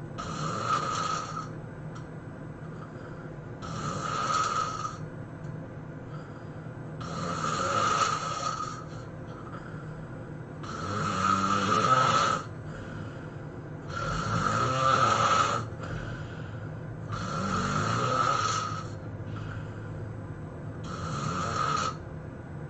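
A sleeping person snoring loudly and rhythmically: seven long, rasping snores about every three and a half seconds, some with a low fluttering rattle.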